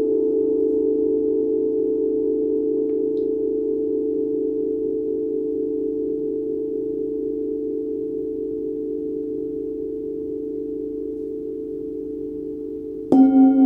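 Forged Tibetan singing bowls ringing on in a long, slowly fading chord of pure tones with a slight wavering beat. Near the end a bowl is struck, sharply starting a new, louder ring.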